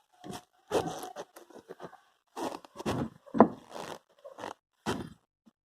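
A Ford Ka's rear seat backrest being pushed against its latch bolt: a run of short scrapes and knocks, about seven in all, the loudest a little past the middle. The bolt has just been raised, and the latch is not yet seating cleanly.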